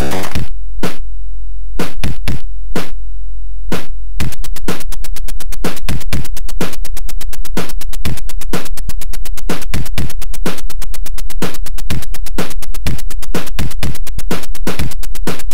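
Sampled percussion played back through the Atari XL/XE's POKEY sound chip: the tune breaks off at the start, a few scattered short noisy hits follow, then from about four seconds in a fast, even run of short hits, several a second, like a drum-machine or scratch loop.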